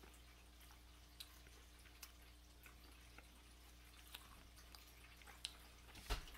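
Near silence with faint, scattered wet mouth clicks of someone chewing toast with the mouth closed, a few spaced seconds apart, and a slightly louder smack near the end over a low steady hum.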